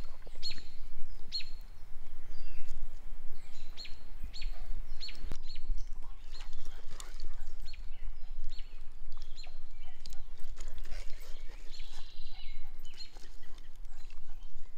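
Small birds chirping repeatedly: short, high chirps that drop quickly in pitch, coming in quick runs at the start and again about four seconds in, over a steady low rumble.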